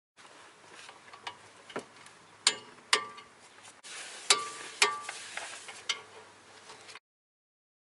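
Metal clinking and clanking: a string of light clicks and rattles with four louder clanks, each ringing briefly, typical of tools and steel brake parts being handled. The sound starts and cuts off abruptly.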